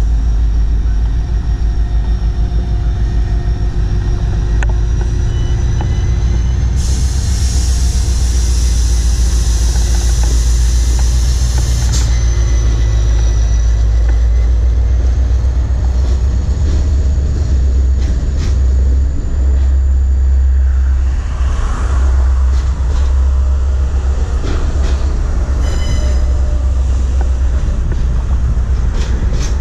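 Diesel locomotive passing close with its engine running, then its train of freight cars rolling by with a heavy steady rumble. A thin high wheel squeal runs through the middle, a hiss comes in for about five seconds, and wheels click over rail joints later on.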